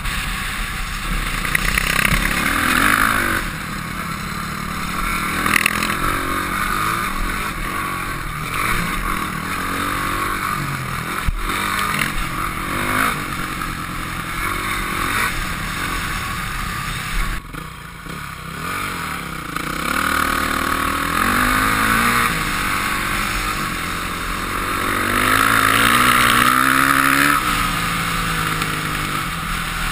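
Honda CRF450R's single-cylinder four-stroke engine revving up and down as the dirt bike is ridden hard around the track, heard from the rider's helmet. The throttle closes briefly a little past halfway, and the engine pulls loudest near the end.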